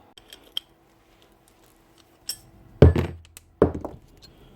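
Grease gun parts and a grease cartridge being handled on a workbench: a few light clicks and clinks, then three heavy thunks in the second half.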